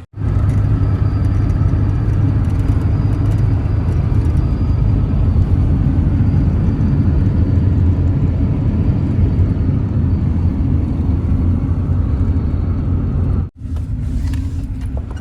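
A 1992 Holden VP Commodore driving at speed: a steady, loud rumble of engine and road noise. It breaks off for a moment about 13 and a half seconds in, then carries on.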